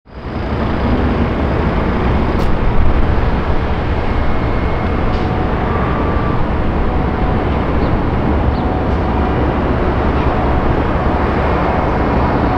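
Airbus A380-861 airliner on final approach with its gear down, its four GP7200 turbofan engines giving a steady, deep rumble with faint high whining tones. The sound fades in at the start and then holds level.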